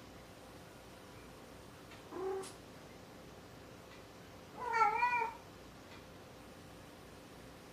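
Domestic cat meowing twice: a short, lower meow about two seconds in, then a longer, louder meow with a wavering pitch about five seconds in.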